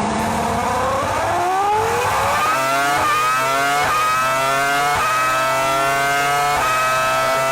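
Formula 1 car engine accelerating hard through the gears: its pitch climbs steadily and drops briefly at each of four upshifts, each a second or so after the last.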